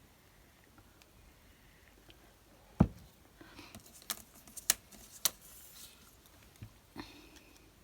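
Handling noise at a craft desk: one heavy thump about three seconds in, then a few sharp clicks with a soft paper rustle, and two lighter knocks near the end.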